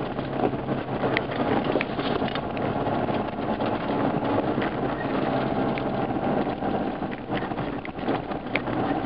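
Off-road 4x4 driving on a gravel track: a steady engine hum under tyre and road noise, with scattered sharp clicks of stones and knocks.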